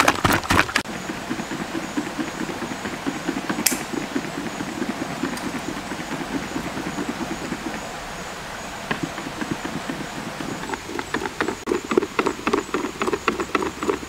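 Hand whisk beating eggs and sugar in a plastic bucket: quick rhythmic strokes against the plastic, about four or five a second. The strokes stop about a second in and start again about three-quarters of the way through. In between there is a steady rush of flowing river water.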